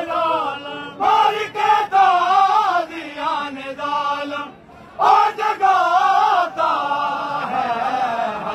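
A man chanting a noha, a Shia lament, unaccompanied, in long wavering drawn-out notes; the voice breaks off briefly about four and a half seconds in.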